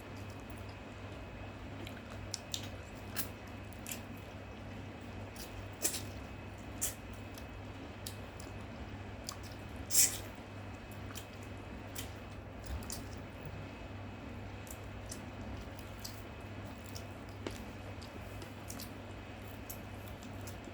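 A person eating close to the microphone: wet chewing and mouth smacks with scattered sharp clicks, the loudest about ten seconds in, over a steady low hum.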